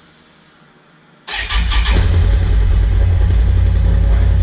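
Can-Am Renegade XMR 1000R ATV's V-twin engine on its stock exhaust starting up: about a second in it fires with a quick stutter and settles into a loud, steady idle.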